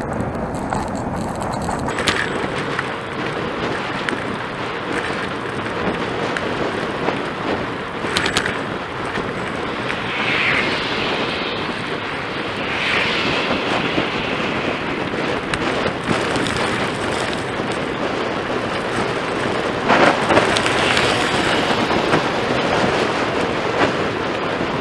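Steady wind rumble on an action camera's microphone mixed with tyre noise from a bicycle rolling along a paved bike path, with a few short knocks from bumps.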